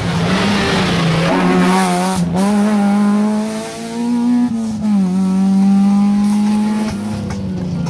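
Rally car accelerating hard away down the stage, engine pitch climbing through the revs and dropping sharply at two upshifts, about two and five seconds in.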